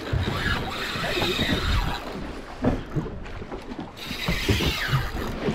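Fishing reel working against a hooked tuna, its gears and drag ratcheting in uneven spells, with wind rumbling on the microphone.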